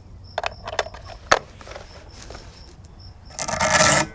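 Light clicks and clinks as .22 cartridges are handled at the bench, then a loud scrape lasting about half a second near the end as the Marlin Model 60 semi-automatic .22 rifle is handled.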